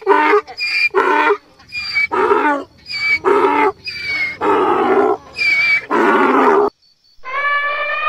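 Donkey braying: a long run of alternating hee-haw notes, a high wheezy note, then a low one, over and over, until it stops abruptly. Near the end a single long, steady trumpeting call begins, from an elephant.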